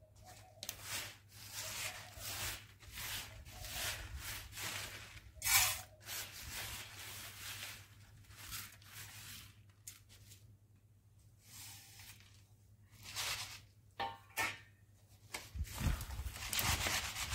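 Dry black wheat grains rustling as they are scooped off a plastic sack by hand and with a steel plate and poured into a plastic jar. The sound comes as a series of short swishes with gaps between them, then a longer, louder pour near the end as the jar is filled.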